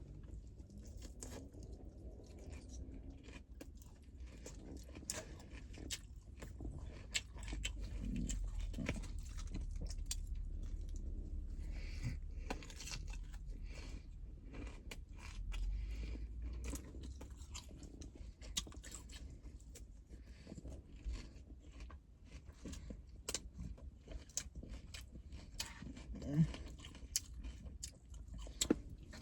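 A person chewing and biting food close to the microphone while eating a meal by hand, with many small irregular crunches and mouth clicks.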